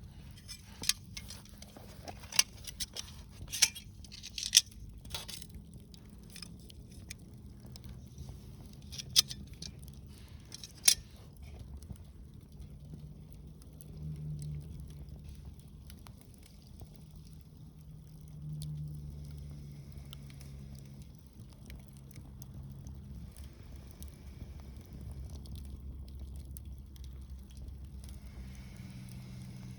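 Wood fire burning in a Coleman Fire Disc Solo fire pit, crackling with sharp pops, most of them in the first ten seconds or so, over a low steady rumble.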